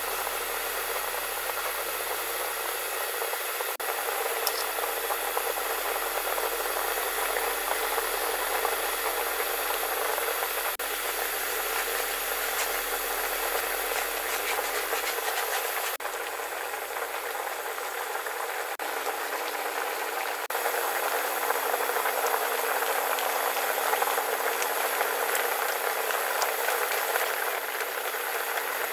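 A pot of kimchi stew at a hard boil: steady bubbling and hiss. The sound shifts a little at a few edit cuts.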